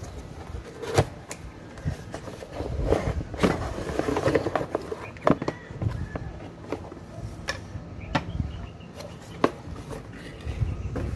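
Handling noise from unpacking a cardboard power-tool box: rustling of cardboard and packaging, broken by scattered sharp knocks and clicks as the box is opened and a jigsaw is lifted out by its cord.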